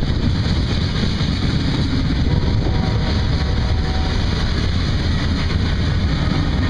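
Freight cars rolling past: steel wheels running on the rails in a steady, loud rumble with no breaks.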